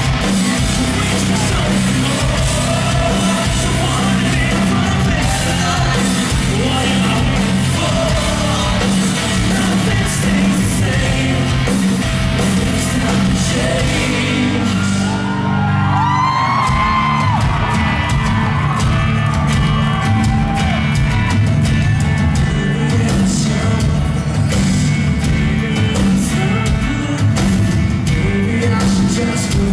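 Rock band playing live: electric guitars, bass, drums and a lead singer, with audience shouts and yells over the music. About halfway through, the cymbals drop out for a moment and the singer holds a long line before the full band comes back in.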